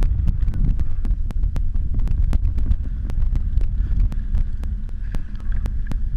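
Wind buffeting the microphone: a heavy, uneven low rumble. A faint regular clicking, about four or five clicks a second, runs under it.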